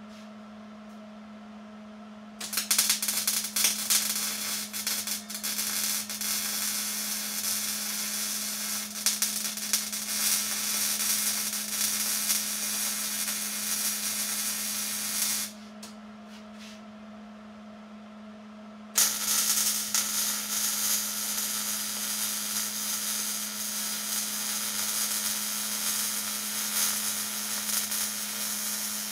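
Electric arc welding on a metal go-kart tube frame: two long runs of crackling arc, the first starting about two seconds in and stopping about halfway, the second starting about two-thirds of the way through, over a steady low hum.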